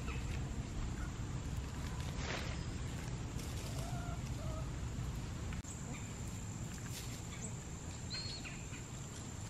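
Backyard chickens foraging in dry leaf litter: a few faint, short hen calls and a rustle of leaves about two seconds in, over a low background rumble that drops away about halfway through.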